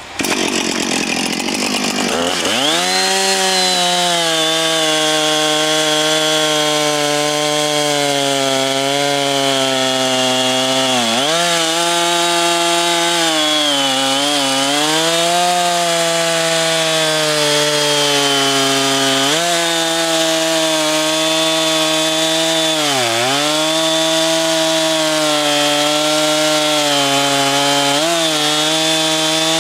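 Husqvarna 455 Rancher two-stroke chainsaw revved up to full throttle and cutting through a 17-inch log. The engine note rises over the first couple of seconds, then holds high and steady, dipping briefly in pitch about five times as the chain works through the wood.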